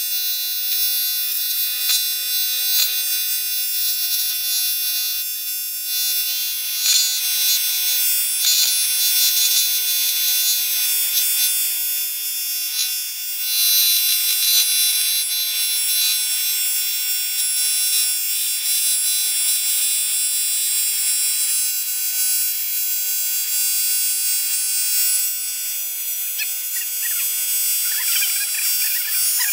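TIG welding arc running with a steady buzzing hiss as filler wire is fed into a ground-out crack in a Volkswagen 1.9 diesel's aluminium cylinder head.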